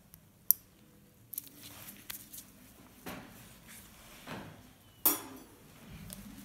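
Surgical instruments being handled: a sharp metal click about half a second in, then rustling and scraping, with a louder clatter about five seconds in.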